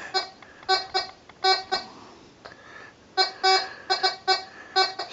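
Garrett Compadre metal detector with an 8-inch coil sounding its target tone, a series of short beeps at one steady pitch, as a knife blade is passed over the coil. The beeps come in two runs, with a pause of about a second in the middle.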